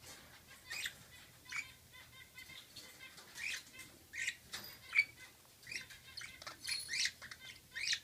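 Budgerigars chirping and chattering in short, high calls about every half second, the loudest about five seconds in: courtship chatter between a flirting pair.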